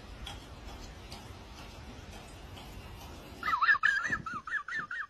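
A cat making a rapid, warbling, gobble-like trill of chirps, starting about three and a half seconds in after faint room noise.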